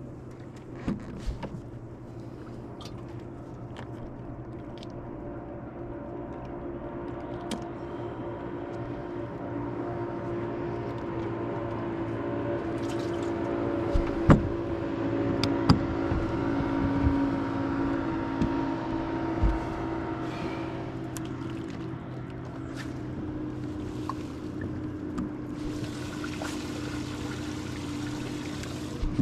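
Boat motor running steadily, slowly getting louder through the middle and easing slightly near the end, with a few sharp knocks.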